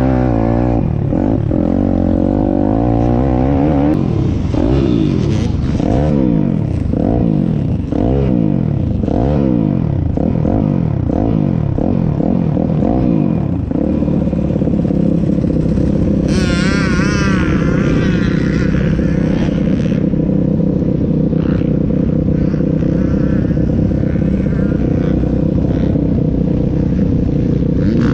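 Piranha P190 pit bike's single-cylinder four-stroke engine under hard riding, revving up and down again and again through the first half, then holding steady revs. A second, higher engine note wavers briefly about two-thirds of the way in.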